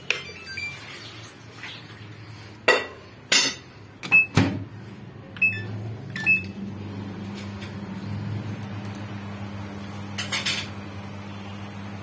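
A Samsung microwave oven being started with its cover off: a switch click and short beeps from its control panel, a few sharp knocks, then a steady low mains hum from the transformer and fan as the oven runs, on test after a magnetron replacement.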